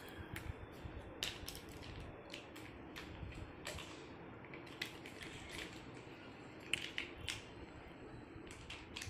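Small plastic toy animals being picked up and handled, giving a few faint, irregular clicks and taps.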